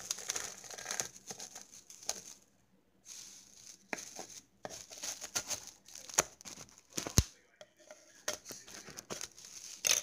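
Thin plastic sheeting being cut and torn with a kitchen knife, crinkling and rustling in irregular bursts, with a few sharp knocks, the loudest about seven seconds in.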